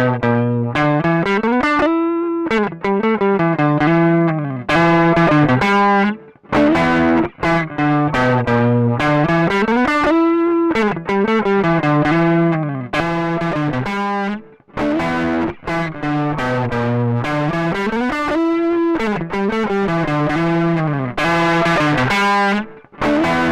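Electric guitar played through a JHS 3 Series Screamer overdrive pedal, giving a mild overdriven tone. A repeating riff of picked chords and single notes, with a sliding or bent note about every eight seconds.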